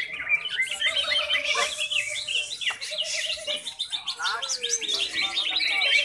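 Several cucak ijo (greater green leafbirds) singing at once, a dense tangle of quick overlapping chirps and whistled phrases with no pause.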